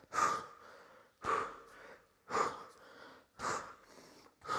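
A man breathing out hard under effort, five short, sharp puffs about a second apart, one with each side-to-side turn of a dumbbell Russian twist.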